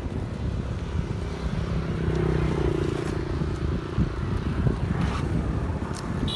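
Steady outdoor rumble of street traffic, with an engine hum swelling for a couple of seconds near the middle, typical of a motorbike running nearby.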